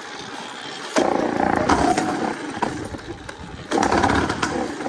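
Two-stroke Minarelli engine of a motorized bicycle, running on a leaned-out 135 main jet in its Mikuni VM20 carburettor, opening up suddenly about a second in, easing off in the middle and pulling hard again near the end.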